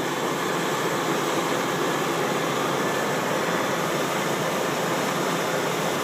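Gleaner combine running as it unloads wheat through its unloading auger into a grain truck: a steady, even machine noise with no breaks.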